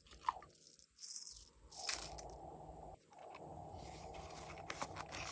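Hands squishing and kneading glossy slime, with irregular crackly, clicking and popping bursts from air pockets and add-ins being worked through it.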